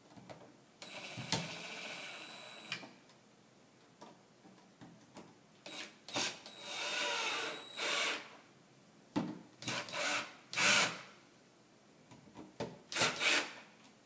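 Cordless drill driving screws into a light-switch wall plate: two short runs of motor whine, about two seconds then about a second and a half, followed by a series of short knocks and clicks.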